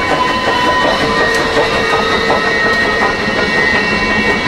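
Passenger train rolling past, with a steady rumble of wheels on rail and a few steady high squealing tones held over it.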